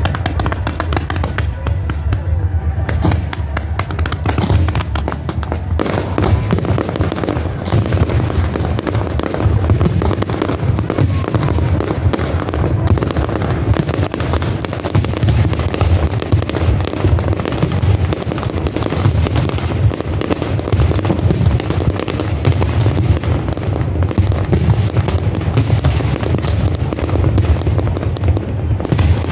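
Fireworks display: a rapid, continuous barrage of aerial shell bursts and crackling reports with a deep rumble under them, growing denser after about six seconds.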